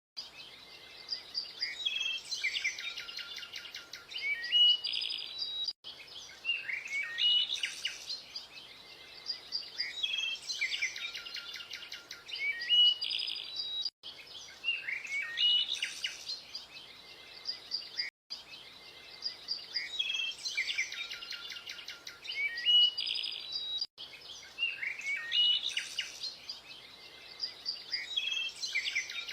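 Birds chirping and singing, with quick trills and fast runs of repeated notes. The same short passage repeats over and over, with brief dropouts where it restarts.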